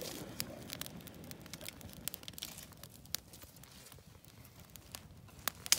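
Small campfire of twigs and sticks crackling, with irregular sharp pops over a low hiss and one louder pop near the end.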